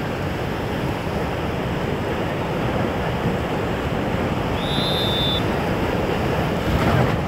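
Steady rush of river water around an inflatable raft, with wind buffeting the phone's microphone. A short high whistle-like tone sounds briefly about five seconds in.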